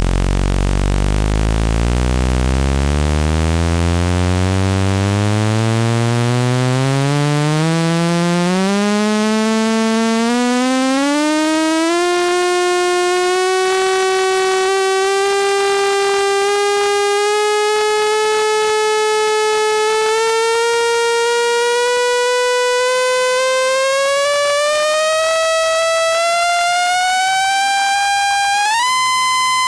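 Speaker-cleaning tone: a buzzy electronic tone rich in overtones that climbs slowly in pitch, in small steps, from a deep hum to a high whine, with a sudden jump up near the end. Such a sweep is played to shake water and dust out of a phone speaker's grille.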